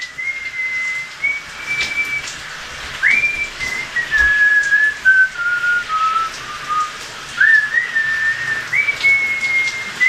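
A tune whistled by a person: one clear tone held on note after note, sliding up into some notes and stepping down through others.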